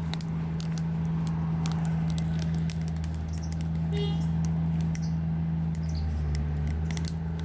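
Wood fire crackling in a mangal, with many scattered sharp pops and ticks, over a steady low hum.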